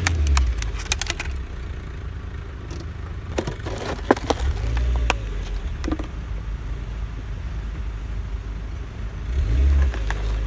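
A car tyre rolls over plastic objects on snow and crushes them. There is a quick run of sharp cracks in the first second as the plastic breaks, then a few more cracks and crunches later. Under it the car's engine rumbles low, growing louder near the end.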